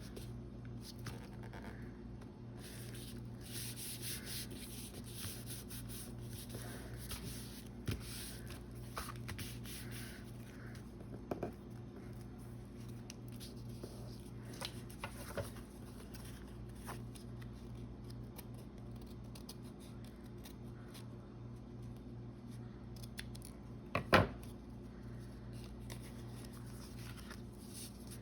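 Glue being spread over a board book page: soft, intermittent rubbing and scraping of the spreader against paper. A few light clicks and one sharp knock about 24 seconds in, over a steady low hum.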